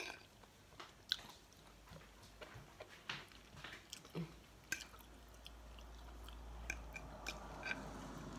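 A person chewing and biting into cooked mushrooms, with soft mouth noises and a few faint clicks from the fork.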